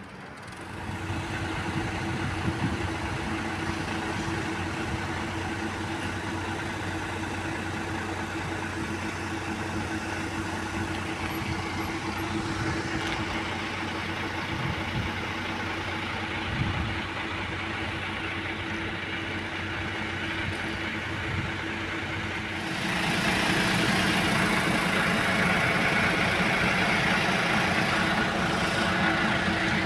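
City bus engines idling, a steady hum. About three-quarters of the way through it grows louder, with a hiss added on top.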